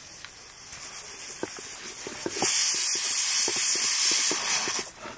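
Food crackling in a hot cooking pan, with sharp pops throughout. A loud sizzling hiss starts about halfway through and cuts off suddenly after about two and a half seconds.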